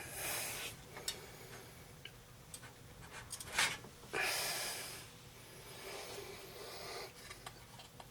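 A man exhaling heavily, several breathy sighs and snorts through the nose, one longer about four seconds in, in frustration at a graphics card that won't fit the case, with a few small clicks and taps of handling in between.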